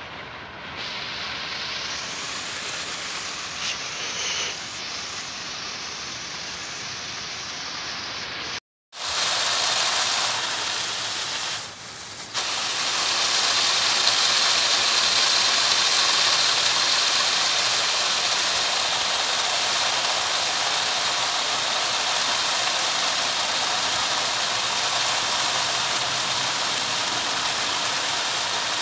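Artificial rain from garden sprinklers: a steady hiss of water spray falling on palm fronds and grass. It cuts out for a moment about nine seconds in, dips briefly near twelve seconds, and then runs on louder.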